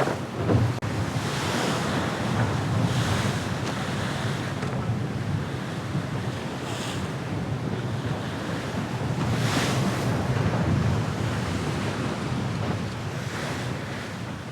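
Water rushing along the hull of a VO65 racing yacht under sail, a steady hiss that swells in surges several times, with wind buffeting the microphone.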